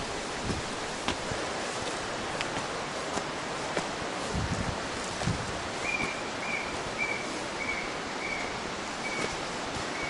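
Steady outdoor hiss with a few soft footfalls; from about six seconds in, an animal call of about seven short whistled notes at one high pitch, a little under two a second, which the walker wonders is a deer's call.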